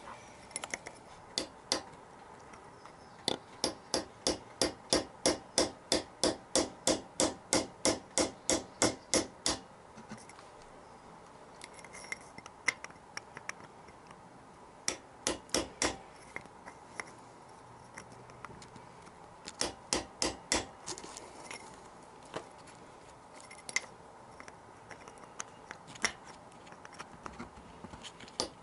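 Hammer striking a chisel against a seized bolt on a Yamaha XJ900S engine's intake, tapping it round to undo it, metal on metal. There is a long even run of about three blows a second, then shorter groups of blows.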